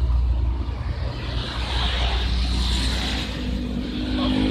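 Road traffic: a motor vehicle running close by with a steady low rumble and tyre and engine noise.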